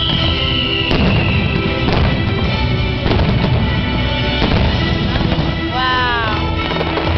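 Fireworks display with its show music playing loudly throughout. Several fireworks bursts bang over the music about once a second in the first half, and a falling whistle-like glide comes near the end.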